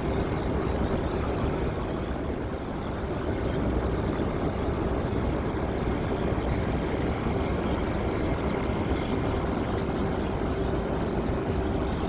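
Aircraft engines running steadily: an even, loud rush of noise with a steady hum held underneath.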